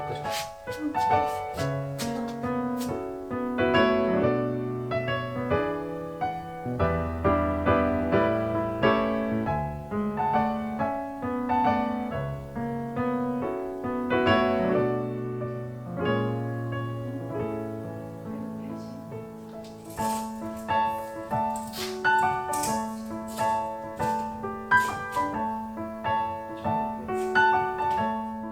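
Background piano music, a continuous run of melodic notes.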